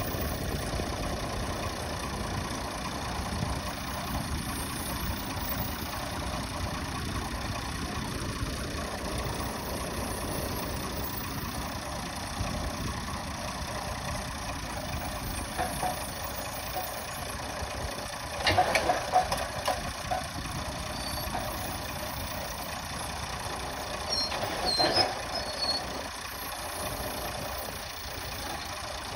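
Drill rig's diesel engine running steadily, with two short bursts of louder clatter from the rig, the first about two-thirds of the way through and the second near the end.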